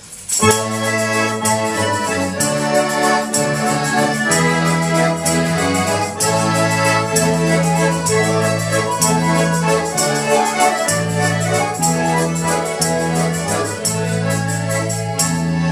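Several garmon button accordions playing a lively folk quadrille together in held, reedy chords, with a tambourine striking the beat; the music starts abruptly about half a second in.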